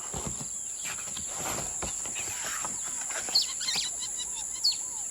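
Nature ambience sound effect: a steady high-pitched insect drone with scattered bird chirps, a cluster of them a little past three seconds in and another near the end.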